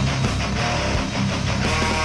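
Channel intro music led by strummed guitar.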